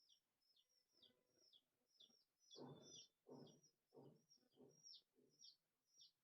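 Faint small bird chirping over and over: short high chirps, each falling in pitch, about three a second. A few faint, muffled low sounds come in the middle.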